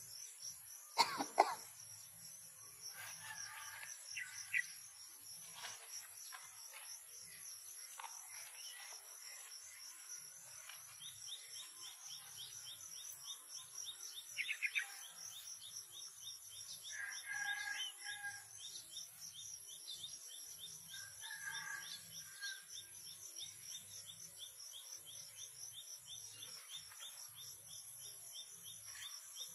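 Outdoor ambience of insects chirring steadily in a high, pulsing chorus, with a second, faster trill joining partway through. A few short chirps and calls, and a couple of sharp clicks about a second in.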